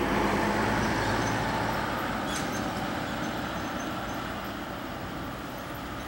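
A passing motor vehicle, loudest at the start with a low engine hum, fading away gradually.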